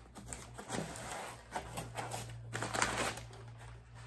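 Gift packaging being handled and opened by hand: a continuous rustling and crinkling with small crackles, louder in a few bursts.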